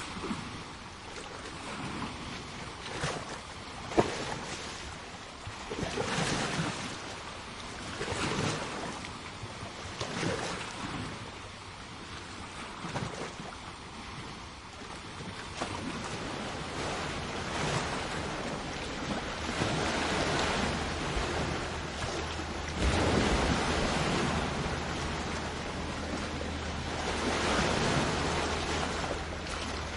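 Sea waves washing onto a shore, the surf swelling and falling back every few seconds, with one sharper splash about four seconds in. In the second half the wash grows denser and steadier, over a low rumble.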